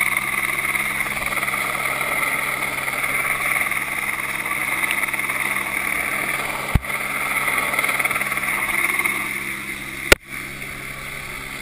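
Helicopter hovering overhead on a long line: a steady rotor and turbine drone with a whine. Two sharp clicks sound about seven and ten seconds in, the second louder, and after it the drone is quieter.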